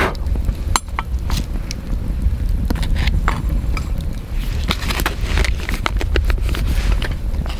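Wood campfire crackling with scattered sharp pops, over a steady low rumble, while a small black iron irori pot and its wire handle clink and a plastic packet crinkles as they are handled.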